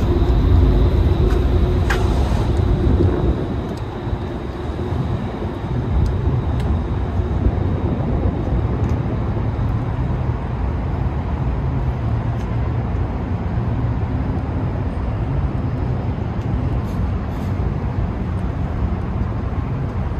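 Steady low engine rumble over a haze of background noise.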